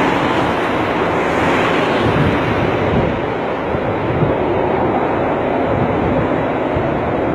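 Strong gusty wind rushing and buffeting the microphone, a loud steady roar.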